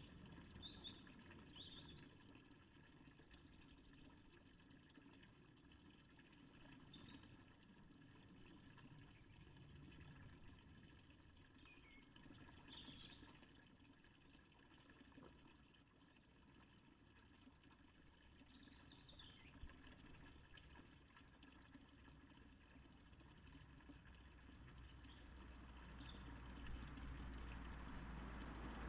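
Birds chirping in short, scattered calls every few seconds over a faint steady rush of fountain water; the water grows louder near the end.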